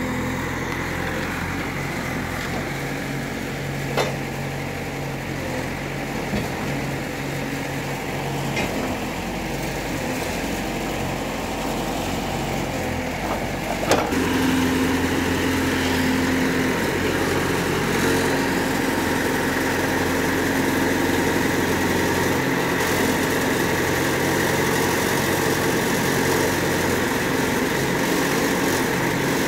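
CASE backhoe loader's diesel engine running steadily while it digs and loads soil with its backhoe. A small knock comes early in, and a sharp knock comes about halfway through, after which the engine sounds louder and closer.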